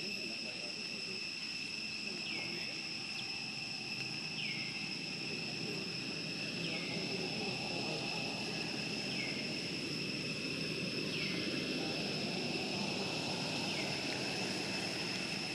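Steady, high insect drone from the forest canopy, holding two even pitches, with a short downward-sliding chirp repeating about every two seconds over a low background murmur.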